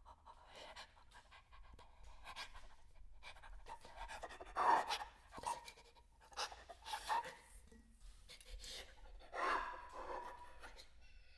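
Irregular bursts of breath and air noise from a performer, quiet and uneven. The two loudest come about five and nine and a half seconds in and carry a faint pitch.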